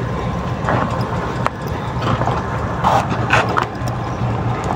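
Scattered light knocks and clicks, with a few short rustles, over a steady low hum.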